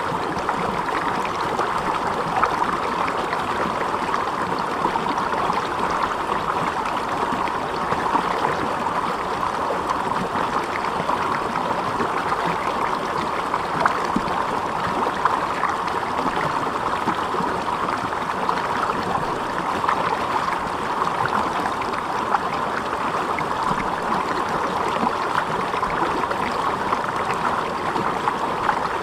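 Water flowing steadily with an even, unbroken babble, like a stream.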